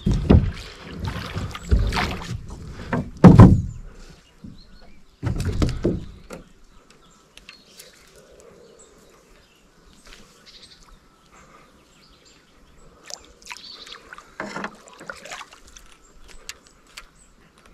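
Oars working an inflatable boat through the water: four loud splashing strokes in the first six seconds, then quiet water with a few small knocks and clicks from handling in the boat.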